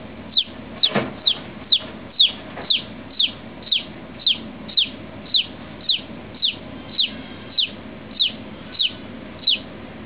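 Newly hatching chick peeping: short, high peeps that slide downward, repeated steadily about twice a second as it works its way out of the shell.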